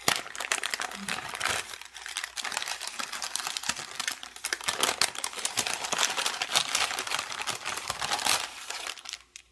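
Tissue paper crinkling and rustling as hands unfold it to unwrap a small parcel, a busy run of crackles that dies away near the end.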